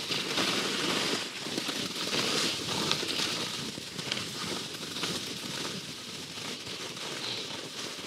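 Line Sakana skis scraping and hissing over hard, tracked snow during a fast descent, the swish rising and falling with each turn and broken by small crackles and clicks.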